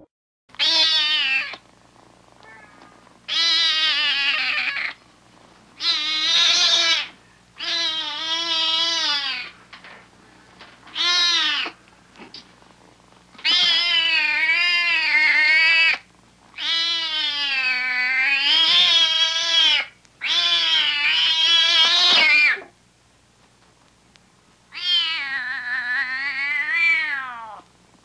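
Domestic cat howling: a series of about nine drawn-out yowls whose pitch wavers up and down, each lasting one to three seconds, with short pauses between them.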